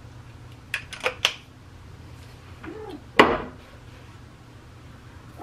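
Toiletries being handled at a bathroom sink: three light clicks about a second in, then one louder knock about three seconds in, over a steady low hum.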